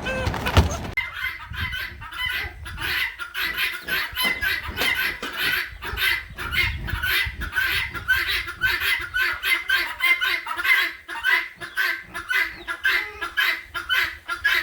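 Chickens clucking in a dense, rapid run of short calls, several a second.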